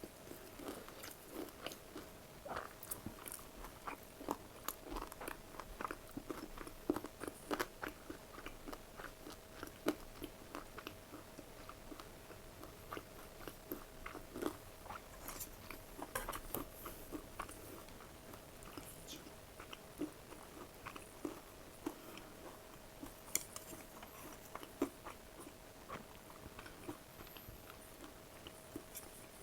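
Close-miked eating: repeated crunchy bites and chewing, irregular clicks and crackles, over a faint steady hum.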